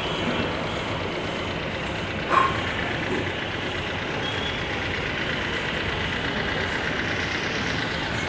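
Toyota TownAce mini truck engine idling steadily while its cooling system is bled of air, the coolant still well below operating temperature. A single sharp clack sounds about two and a half seconds in.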